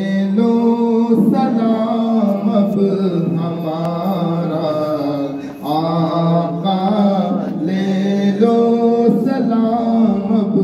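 A male voice chanting an Urdu devotional salaam (naat) in long held notes that step from pitch to pitch, with a short break about halfway through.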